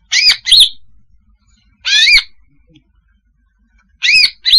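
Female green leafbird (cucak hijau) calling: clear, looping whistled notes in three short phrases about two seconds apart, the first and last made of two quick notes, the middle one of a single note. It is the female's call used as a bird-trapping lure.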